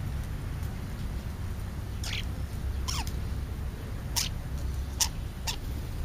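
Black birds calling while feeding: five short, sharp calls that slide down in pitch, spread over the last four seconds, over a steady low rumble.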